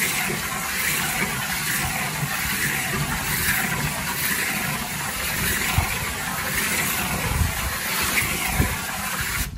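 Garden hose spray nozzle jetting cold water into a crawfish boiler's pot of hot, just-boiled crawfish, a steady spraying hiss that cuts off suddenly at the end. The cold water is added to stop the boil and let the crawfish soak up the seasoning.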